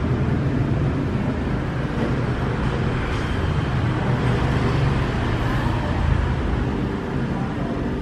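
Steady rumble of a motor vehicle engine running, with traffic-like noise around it.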